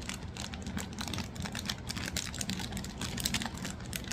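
Small plastic packaging and figure parts being handled: a run of irregular light clicks and crinkles, over a steady low hum.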